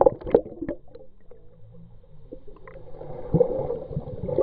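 Muffled water sounds picked up by an underwater camera just below the surface: gurgling and sloshing, with a few sharp knocks near the start and a steady hum underneath.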